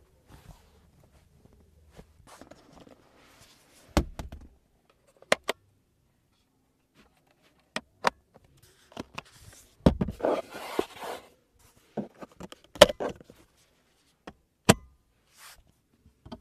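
A series of sharp clicks and knocks from hands handling the rear-seat interior trim of a Lexus ES300h: the fold-down armrest's storage lid and its plastic panels. A short rustling scrape comes about ten seconds in.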